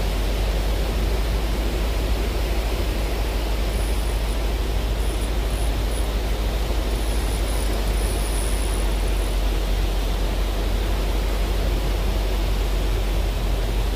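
Surf breaking on a beach together with wind on the microphone: a steady rushing noise with a heavy low rumble.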